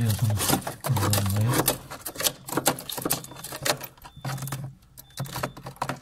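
Irregular sharp clicks and taps of a small hand tool picking and chipping at ice at the back of a refrigerator compartment, clearing the drain hole that has frozen over and made water leak out under the fridge.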